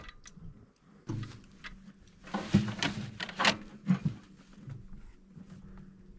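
Handling noise from .22 Long Rifle cartridges being counted out for loading: light clicks and taps, with a short run of louder rustling and clacking a couple of seconds in.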